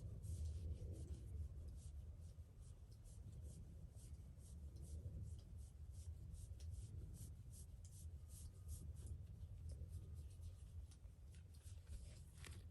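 Faint scratchy rubbing and brushing of a cat's fur against a hand held close to the microphone, a quick run of tiny scratches over a low steady rumble.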